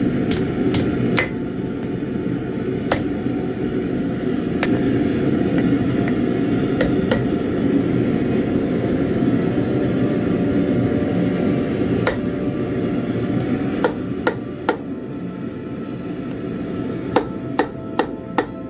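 Hammer blows on metal: scattered single strikes, then a steady run of about two blows a second near the end, over a steady low rushing noise.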